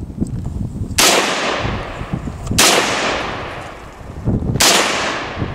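AK-47 rifle firing three single shots, spaced about a second and a half to two seconds apart, each followed by a long echoing tail.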